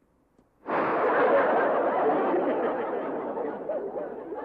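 Sitcom laugh track: a crowd of recorded audience laughter comes in suddenly under a second in and slowly dies down toward the end.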